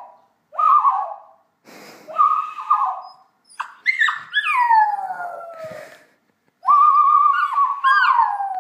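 Small dog whining and howling: two short cries, then a long howl sliding down in pitch, and near the end a long wavering cry.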